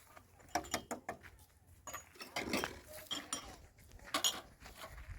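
Dishes and utensils clinking, in a few scattered sharp knocks.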